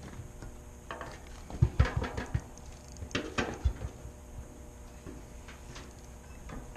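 A few dull thumps and knocks of handling noise from an angler working a fishing rod on a boat, in two clusters about two and three and a half seconds in.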